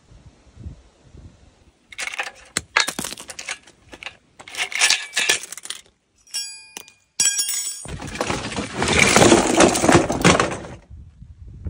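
Litter being picked up and handled: crackling, rustling plastic and paper with many sharp clicks, broken by a couple of short ringing metallic or glass clinks a little past the middle, then a longer spell of dense rustling near the end.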